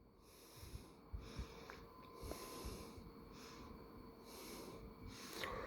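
Faint breathing: several short breaths in a row, with a soft hiss to each.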